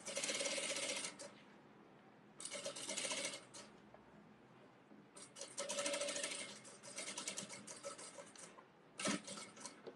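Industrial lockstitch sewing machine stitching a seam in short stop-start runs: a rapid needle rattle for about a second, another second-long run, a longer run of about three seconds, then a brief burst near the end, with pauses between as the fabric is guided.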